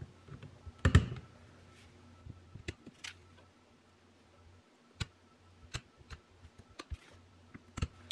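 Scattered metallic clicks and taps as long-nose pliers hook the shoe springs back onto a GY6 150 centrifugal clutch, the loudest about a second in, then single clicks every second or so.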